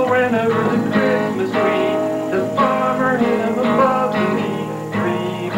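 Acoustic guitar strummed in a steady rhythm of chords, with a man singing along.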